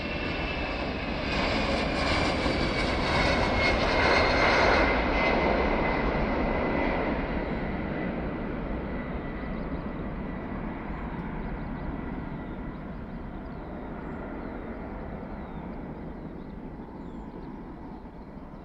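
Airbus A319 twin-engine jet airliner at takeoff thrust, rolling down the runway and climbing out. The engine noise swells to its loudest about four seconds in, with a whine that falls in pitch as the plane passes, then fades steadily as it climbs away.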